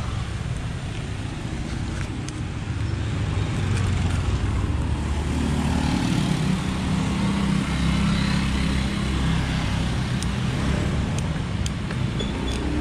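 Road traffic: a steady rumble of passing motor vehicles, with one vehicle's engine hum growing louder from about five seconds in and easing off near the end. A few faint ticks sound over it.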